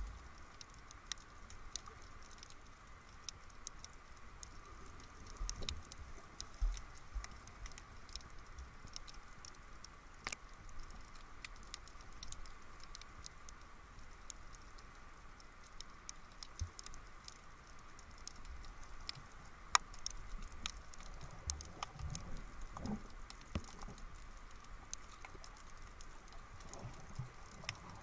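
Underwater sound heard through an action camera's waterproof housing: faint scattered clicks and crackles over a steady hiss, with a few dull low bumps.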